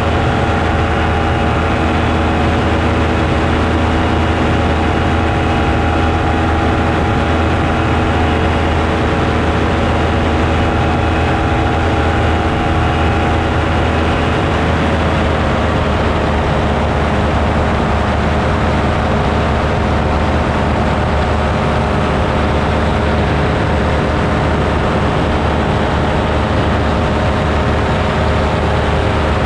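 Piston engine and propeller of a small aircraft running steadily in flight, a constant drone. Its note drops slightly about halfway through.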